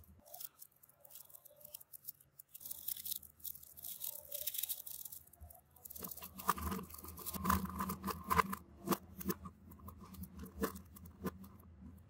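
Small magnetic balls being handled: a crunchy rattle of many balls for a few seconds, then a run of sharp clicks as the balls knock and snap together.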